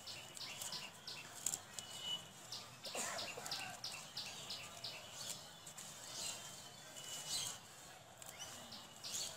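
Bird chirping in quick, evenly repeated short high notes, about four a second, with a few other chirps and calls over it.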